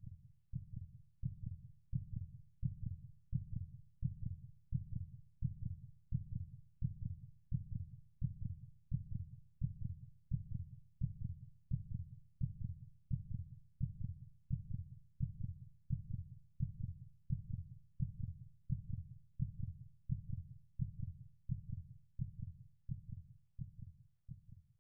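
A slow, steady heartbeat pulse: low thumps about four every three seconds, regular throughout, fading out at the very end.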